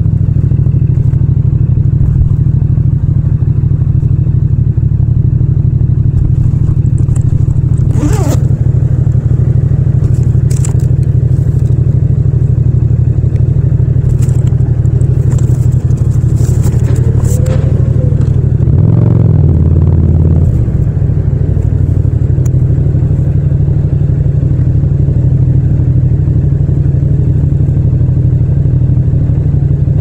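Yamaha MT-07's 689 cc parallel-twin engine idling steadily, with a brief rise in revs about two-thirds of the way through as the bike eases forward. A few light clicks and clatters sound over it.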